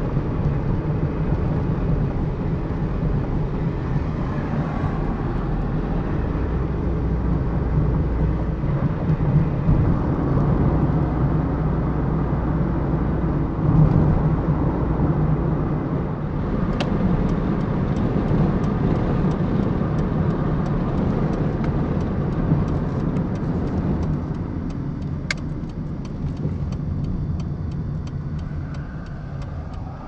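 Car driving at road speed, heard from inside the cabin: a steady engine and tyre rumble.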